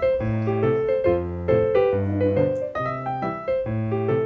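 Background piano music: a light melody of short notes over repeating bass notes.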